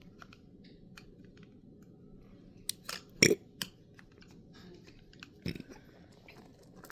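Scattered small plastic clicks and taps from a vinyl figure being pushed and fitted onto its plastic stand, with a cluster of louder knocks about three seconds in and another near five and a half seconds.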